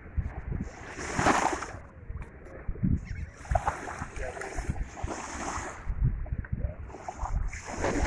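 Small waves lapping and washing up onto a sandy shore, the louder washes about a second in and near the end, with wind buffeting the microphone in gusts.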